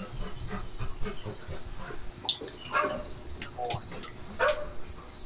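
A dog yelping and whimpering in short calls, several of them in the second half, over a steady high-pitched tone.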